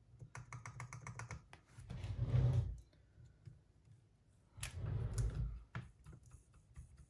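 Rapid light clicking, then two brief louder rustling handling noises, from hands working on a cassette deck's tape transport mechanism.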